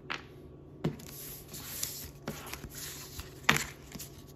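Hands handling trading cards and empty foil pack wrappers on a hard tabletop: rustling and crinkling with a few sharp taps, the loudest about three and a half seconds in.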